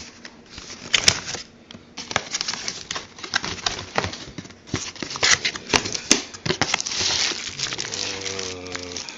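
Packaging being handled while a car stereo is unboxed: plastic and paper crinkling and rustling, with scattered clicks and knocks as parts are lifted out of the box.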